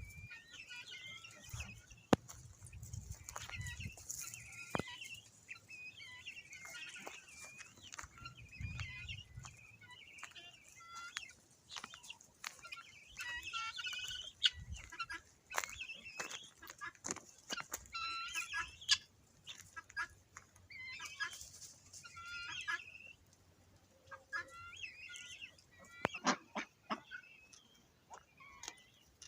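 Chickens clucking, a run of short calls throughout, with scattered sharp clicks.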